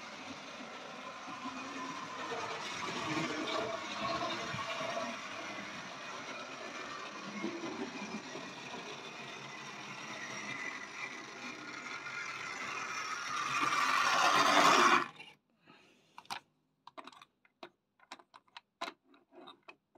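Tri-ang Hornby Flying Scotsman model locomotive running on the layout track, a steady mechanical whirr and rattle of motor and wheels that grows louder and then stops suddenly about fifteen seconds in. A few light clicks and taps follow.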